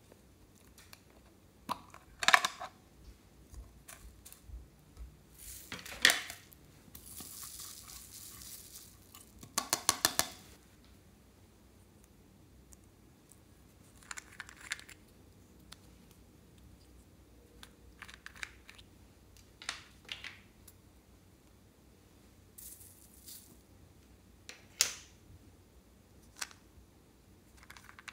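Small plastic containers handled and opened by hand: a slime tub and the screw caps of a twin-cup plastic case, giving scattered sharp clicks and knocks. About ten seconds in there is a quick rattling run of clicks.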